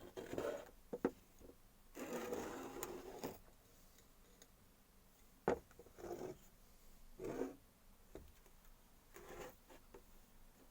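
Intermittent handling sounds: short rubbing and scraping passes, the longest lasting over a second, broken up by a few sharp clicks, one about halfway through standing out as the loudest.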